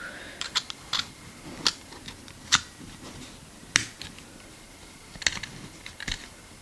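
About ten sharp plastic-and-metal clicks at irregular intervals as a Victorinox SwissCard multi-tool card is handled, its tools clicking against and into the plastic case.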